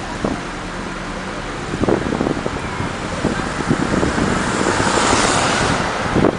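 Road noise inside a moving car: a steady rumble of tyres and engine with wind buffeting the microphone, swelling into a louder rush about five seconds in as an oncoming minibus passes.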